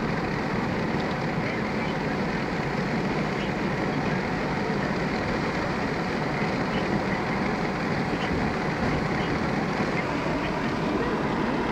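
Steady road and engine noise heard inside a car cabin cruising at about 90 km/h on an expressway.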